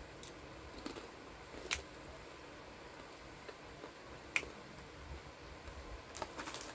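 Mostly quiet, with a few faint, sharp clicks a second or more apart: mouth and chewing sounds of people eating dry crackers.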